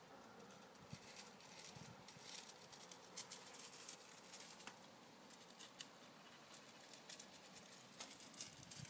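Faint, scattered pattering and clicking of young puppies' paws and claws on stone paving and gravel, with a few soft thuds.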